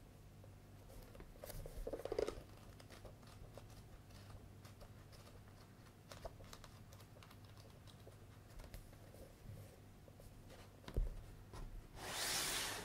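Paperback manga volumes being handled and their pages flipped: a run of soft paper ticks and rustles. A knock comes near the end, then a short, louder rustling hiss.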